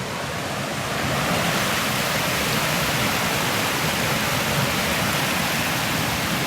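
Mountain stream water rushing in a steady wash, growing louder about a second in and then holding level.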